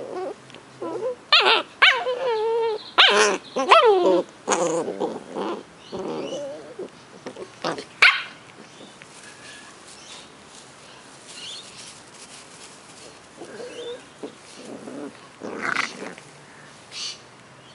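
Ten-week-old Cardigan Welsh Corgi puppies play-fighting, giving high wavering yaps and growly whines, densest in the first few seconds, then only the odd short yap.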